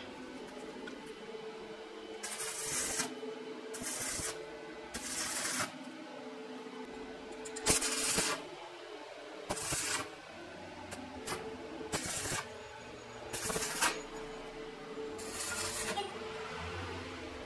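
Electric arc welding on steel pipe: the arc crackles and hisses in about nine short bursts of under a second each, one short weld after another.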